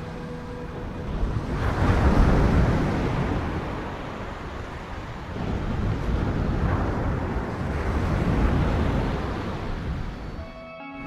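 Sea surf: waves breaking and washing up the shore in two loud swells, the first about two seconds in and the second longer one from about six to nine seconds. A faint steady hum sits under it at the start.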